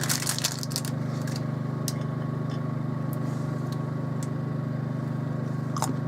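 A steady low mechanical hum with a fast flutter in it, with a cluster of crackling clicks in the first second and a few single clicks later, likely from opening and eating a packet of hazelnuts.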